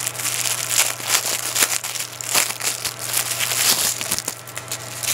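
Aluminium foil wrapping and the plastic bags of diamond painting drills inside it being handled and unwrapped: continuous crinkling and crackling, easing off somewhat near the end.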